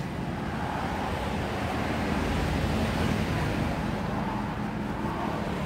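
Steady traffic noise: a low rumble of passing vehicles that swells a little midway.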